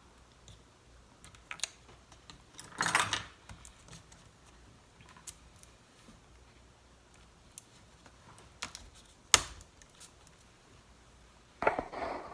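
Scattered small clicks and taps from hands working on an opened MacBook Pro, with a brief rustle about three seconds in and one sharp click just after nine seconds.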